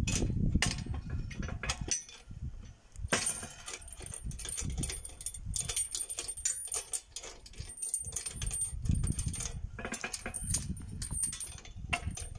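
Metal clinking and jingling as a hay tedder's rotor hub and chains are unbolted with a wrench: a run of sharp clicks and ringing jingles. A low rumble comes at the start and again near the end.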